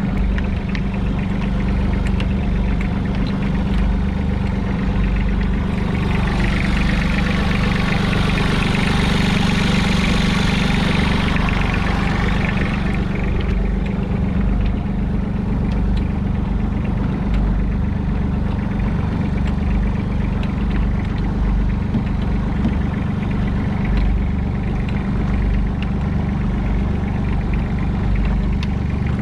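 Fishing boat's engine running steadily with a low, even hum. A rushing hiss swells and fades a few seconds in, midway through the first half.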